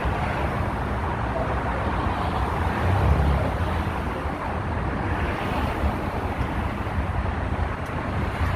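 Steady road-traffic noise, mixed with wind on the microphone. It swells slightly about three seconds in.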